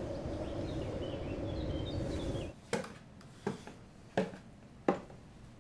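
Outdoor background noise with faint bird chirps, which drops away suddenly after about two and a half seconds. Then footsteps coming down a wooden staircase: four evenly spaced steps, about three quarters of a second apart.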